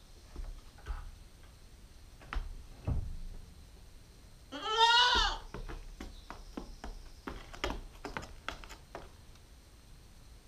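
Nine-week-old Nubian goat kid giving one loud, wavering bleat about halfway through, lasting under a second. Scattered light knocks and taps come before and after it.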